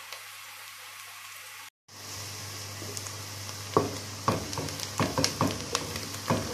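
Chopped onion sizzling in hot oil in a nonstick pot, a steady hiss that cuts out for a moment about two seconds in. From about four seconds in, a wooden spatula stirs the onion, with repeated knocks and scrapes against the pot.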